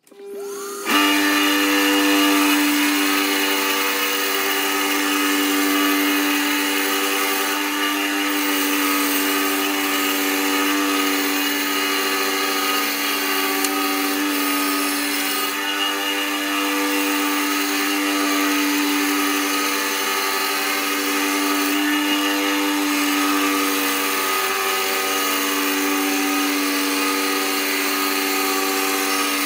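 Bandsaw starting up about a second in, then running steadily with a constant hum while its blade rough-cuts a wooden board fed by hand.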